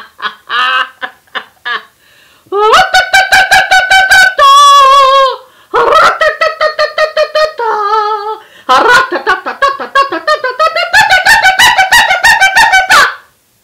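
A woman's loud, wild wordless vocalizing in several bursts: long held shrieking notes, a wavering wail and rapid trilling pulses, with short breaks between them.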